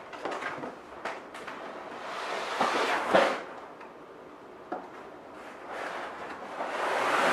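Long cardboard shipping box being handled and tipped over: cardboard scraping and rustling in two swells, with a few light knocks.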